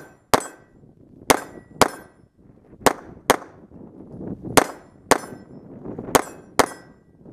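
CZ Shadow 2 9mm pistol fired in rapid pairs: a single shot just after the start, then four double taps. The two shots of each pair come about half a second apart, with roughly a second between pairs.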